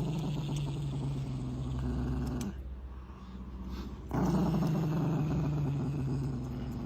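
A dog growling: two long, low growls, the second starting about four seconds in after a short pause.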